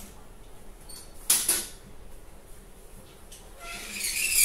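Folded metal ironing board being handled: a sharp clack about a second in, then a scraping, creaking metal sound near the end as the board is tipped down and its legs start to swing open.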